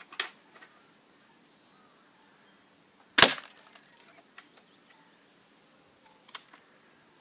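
A single sharp crack from a B2 break-barrel spring air rifle shot about three seconds in, with the pellet striking the cardboard can box; a few fainter clicks and taps come before and after it.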